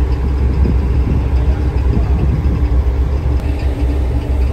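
Steady low rumble of a large passenger ferry's engines, heard from its deck as the ship gets under way.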